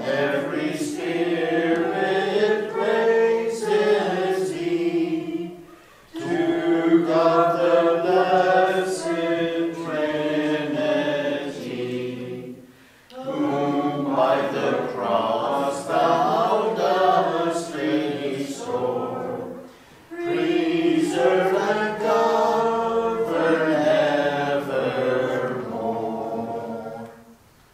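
Church choir singing unaccompanied in four long phrases, with short breaths between them.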